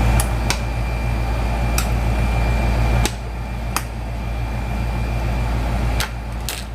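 A steady electrical hum from a kitchen appliance, with a faint steady high whine and light clicks and knocks from time to time. The hum drops in level suddenly about three seconds in and again about six seconds in.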